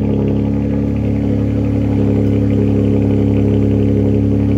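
Porsche Panamera 4S's 2.9-litre twin-turbo V6 with sport exhaust idling steadily at an even pitch just after a cold start.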